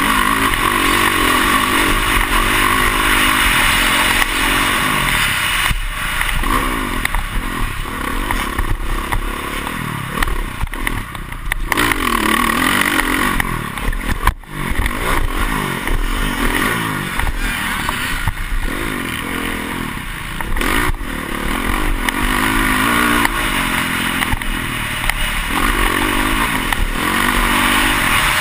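Motocross dirt bike engine ridden hard, close up, its pitch rising and falling again and again as the rider opens and closes the throttle. Constant rushing noise and clatter run underneath, with a sudden brief drop in the engine about halfway through.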